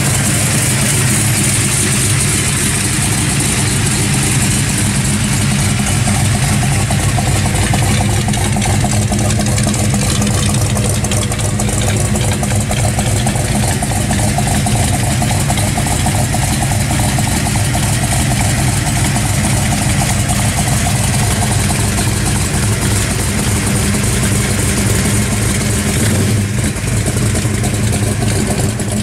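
Dodge Super Bee's V8 idling steadily through its exhaust.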